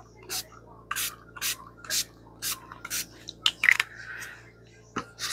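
Small pump spray bottle of dye being squirted in quick successive sprays, about two a second, six in a row. Near the end come a few small knocks and a soft rustle.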